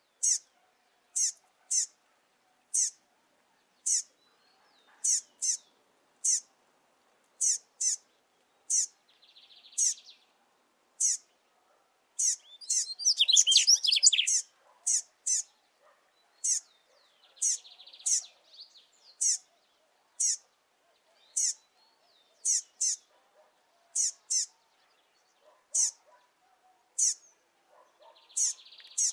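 Double-collared seedeater fledgling calling over and over: short, high notes that slur sharply downward, about one a second, sometimes in quick pairs. About halfway through comes a louder, denser burst of twittering.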